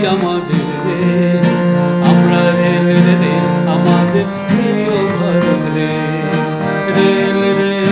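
Song music with plucked string instruments over a steady drone and a melody line that glides up and down.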